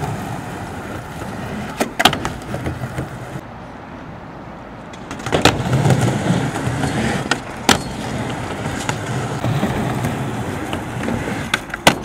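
Skateboard wheels rolling over concrete and a mini ramp, a steady low rumble that swells about five seconds in, broken by a few sharp clacks of the board.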